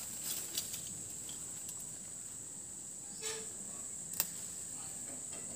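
Steady high-pitched chorus of insects, with a single sharp click about four seconds in.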